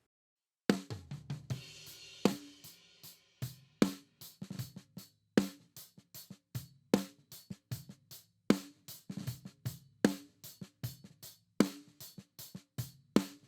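Close-miked snare drum recording (Shure SM57 on the snare top) played back through an API 2500 compressor plugin emulation: a steady groove of sharp snare hits, each with a short ring, with kit bleed from the kick and cymbals, starting about a second in.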